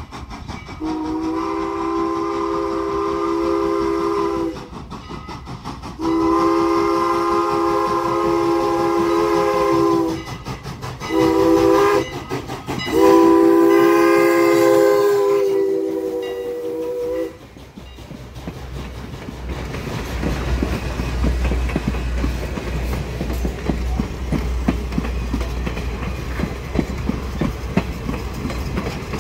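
Strasburg Rail Road No. 89, a 2-6-0 steam locomotive, sounding its chime steam whistle in four blasts (long, long, short, long), the grade-crossing signal, as it approaches and passes. The passenger coaches then roll by with a low rumble and a steady clickety-clack of wheels over the rail joints.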